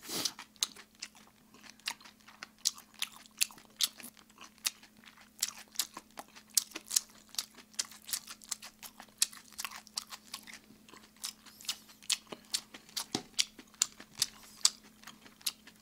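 Close-miked chewing and crunching of sauced fried chicken (Kyochon Red Combo): a steady run of irregular sharp crackles and mouth clicks, with a faint steady hum underneath.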